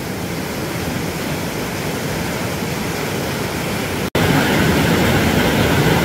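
Mountain stream rushing over rock in a small cascade of whitewater, a steady rush of water. About four seconds in it cuts out for an instant and comes back louder and deeper, close to the churning water.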